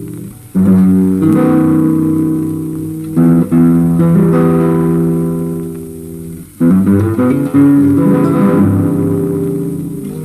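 Soundtrack music on plucked guitar: chords struck several times, each left to ring and fade, with a short break about six seconds in.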